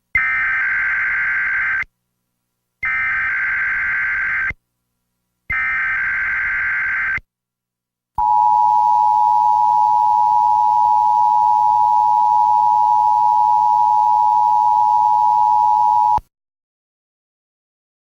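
Emergency Alert System signal: three short bursts of warbling SAME data header, then the steady two-tone EAS attention signal held for about eight seconds before it cuts off. It marks the start of a new emergency alert broadcast.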